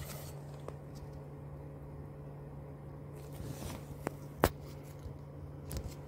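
Handling noises: a few light clicks and a brief rustle, with the sharpest click about four and a half seconds in, over a steady low hum.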